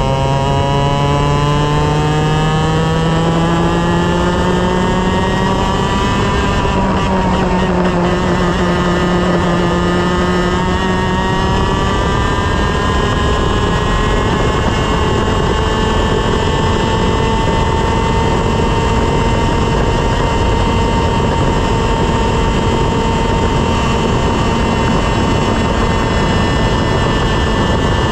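Single-cylinder 125cc two-stroke TaG kart engine under full throttle. The revs climb for about six seconds, dip briefly, climb again, and then hold high and nearly steady.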